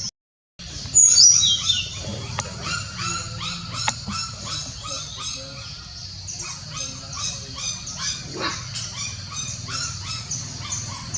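A litter of puppies whining and yelping: a dense run of short, high-pitched calls, several a second, with a louder falling yelp about a second in.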